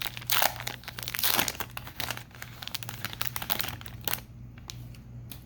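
Trading-card pack wrapper being torn and crinkled open, a dense crackling rustle that stops about four seconds in, leaving a few faint clicks.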